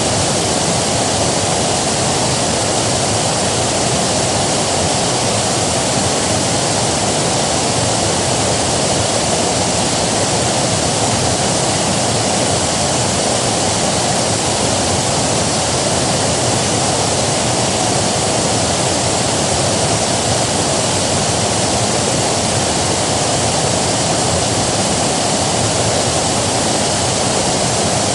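River water rushing, a loud steady even roar with no breaks or single splashes.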